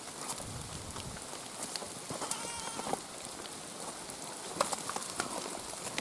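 Feral goat, just caught and being held, bleats once for under a second about two seconds in. Scattered rustling and knocks from the struggle are heard around it.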